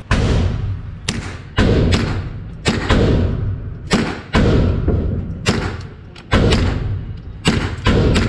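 A GSG-16 semi-automatic .22 LR rifle firing a rapid string of about fifteen shots, roughly two a second. The reports are light, each with a short fading tail.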